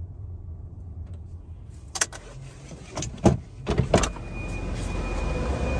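Sounds inside a Tesla electric car's cabin: a low rumble, then several sharp clicks and knocks about two to four seconds in, followed by a steady hum with a faint high whine that grows louder toward the end.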